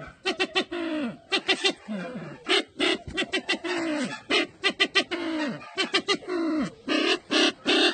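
Calls of the Sumatran ground bird known as burung merah mata (sempidan): a rapid run of short, low calls, many falling in pitch, several a second, mixed with sharp clicky notes.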